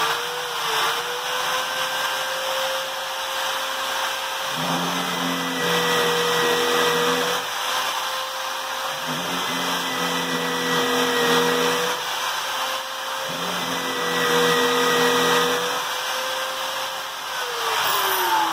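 Corded electric drill mounted in a drill stand, running with a steady whine. Three times the twist bit bores into a wooden block, the motor note dipping slightly under load. Near the end it is switched off and winds down.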